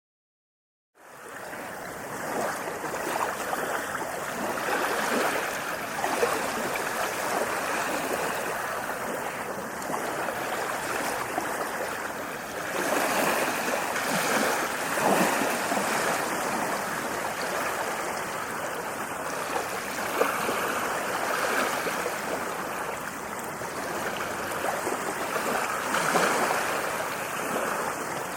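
Ocean waves washing on a shore in a continuous rush that swells and eases every few seconds. It starts about a second in after dead silence.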